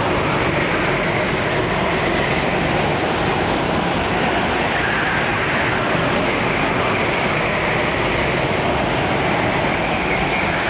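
Several go-kart engines running together on an indoor track, a steady echoing drone. Their higher engine notes rise and fall faintly as the karts come through the corners.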